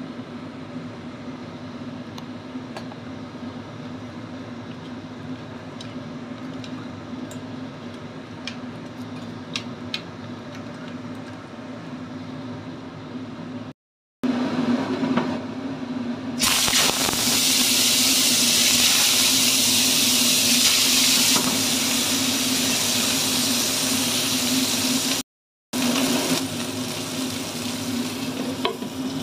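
Fish frying in hot oil in a pan, sizzling loudly for about nine seconds from just past the middle, then quieter under a glass lid near the end. Before that there is only a steady hum with faint ticks.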